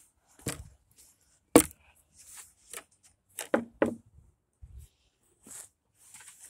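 Garden rake being carried and handled: a string of sharp, separate knocks and clacks, with the loudest about one and a half seconds in and a dull low thump near the end.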